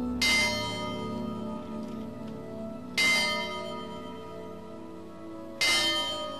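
A bell tolls three times, about every three seconds, each strike ringing on and fading, over soft sustained music.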